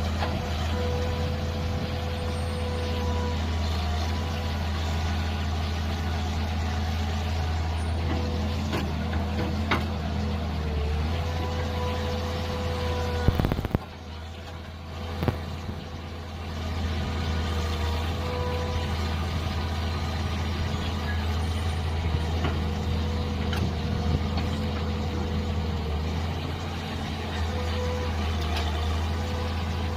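Mini excavator's diesel engine running steadily, with a high hydraulic whine over the engine hum. About 13 seconds in there is a sharp knock, and the sound drops quieter for a few seconds before returning to full level.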